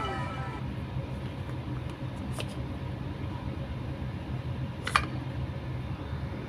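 A falling whistle-like tone fades out at the start over a steady low hum. A hand handling hard plastic toy figures gives a faint click about two and a half seconds in and a sharper, louder click about five seconds in.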